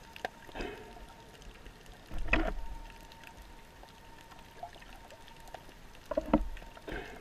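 Underwater sound heard through a camera housing: a low wash of water with short bubbly gurgles, the loudest about two seconds in and another pair near the end, and scattered faint clicks.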